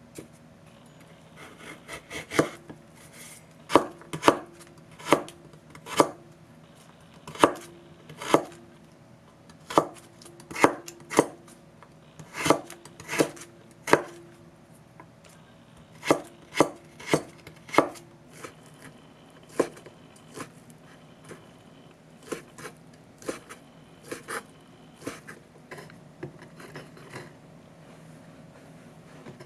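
Kitchen knife cutting a carrot into thin strips on a wooden cutting board: single, irregular knocks of the blade on the board, roughly one a second, fainter over the last third.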